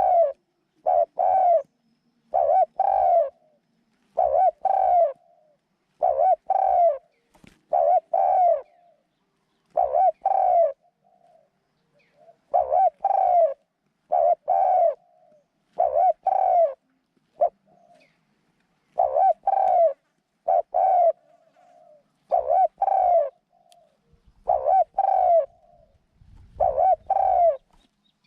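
A decoy dove cooing over and over: short arched coos in pairs or threes, repeated about every two seconds.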